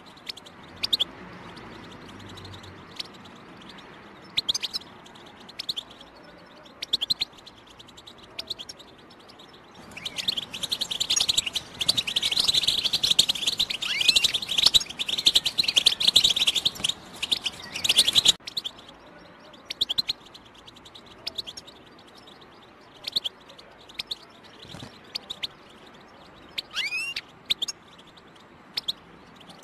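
European goldfinch calling with short, scattered chirps, then breaking into a dense run of rapid twittering song about ten seconds in that lasts some eight seconds and stops abruptly, before the sparse chirps resume. This is the 'batbata' song used to prime and stimulate caged goldfinches to sing.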